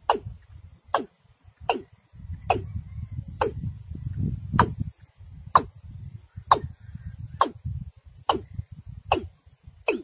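Watercock (cúm núm) calling: a short, sharp "óc" note that drops quickly in pitch, repeated about a dozen times at roughly one a second, over a low rumble.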